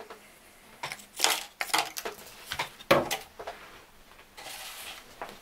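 Light knocks, clatters and rustles of cut-up plastic milk bottles being handled and set down on a tabletop, with a short scraping rustle near the end.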